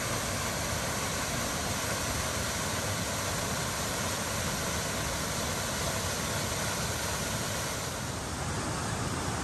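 Waterfall rushing and splashing into its plunge pool: a steady, unbroken roar of falling water.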